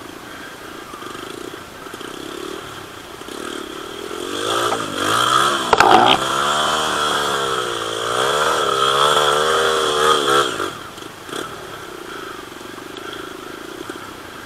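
Dirt bike engine revving, its pitch swinging up and down with the throttle, growing loud from about four seconds in, loudest around six seconds, and fading away just before eleven seconds. A fainter steady engine hum lies under it before and after.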